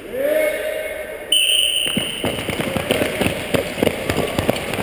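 An electronic starting beep sounds, a steady high tone held about half a second, and the race is off. Then comes a rapid, irregular clatter of short-track speed skate blades striking and biting into the ice as the skaters sprint from the start.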